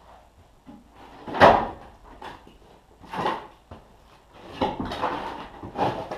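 Split birch firewood being stacked by hand: pieces knock and clatter against each other as they are laid on the pile, in a series of separate wooden clunks. The loudest comes about a second and a half in.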